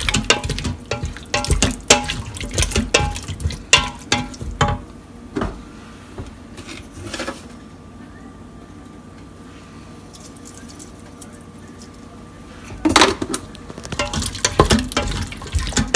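A wooden spoon stirring a thick lentil and vegetable stew in an Instant Pot's stainless-steel inner pot: quick knocks and scrapes against the pot with wet sloshing. The stirring stops for several seconds in the middle and starts again near the end.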